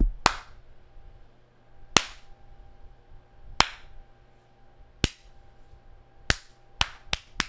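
Sharp single clicks, each with a short echo. The first few come about one and a half seconds apart, then they quicken into a fast run near the end.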